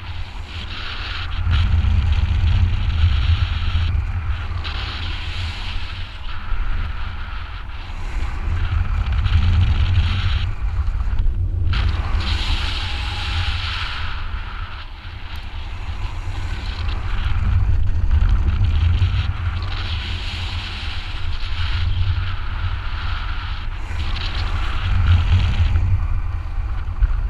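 Wind buffeting a GoPro camera's microphone in paragliding flight: a heavy, steady rumble with a rushing hiss above it, swelling and easing every few seconds.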